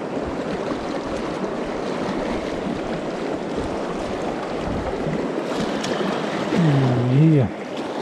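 Steady rush of fast-flowing river water. Near the end a man's short wordless voice sounds, rising and falling in pitch.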